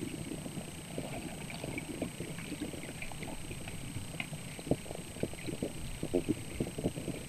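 Muffled underwater noise picked up through a submerged camera housing: a low rumbling wash of water with many small irregular knocks and clicks, and a faint steady high-pitched whine.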